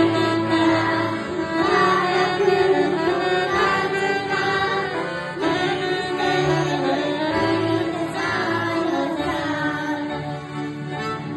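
Live worship music from a small ensemble of electronic keyboard, accordion and saxophone, with children's voices singing along.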